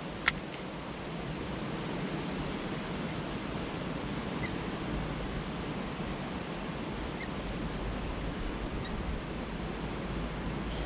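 Steady rushing of a small stream's water running past, with one sharp click about a third of a second in.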